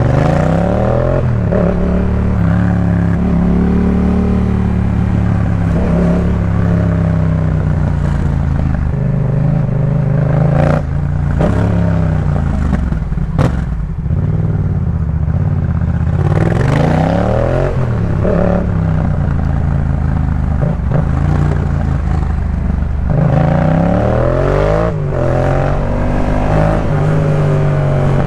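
Yamaha MT-07's parallel-twin engine through a Jeskap K4 full exhaust, ridden hard: the revs climb and drop back repeatedly as it pulls through the gears and shifts. A few sharp cracks come in the middle.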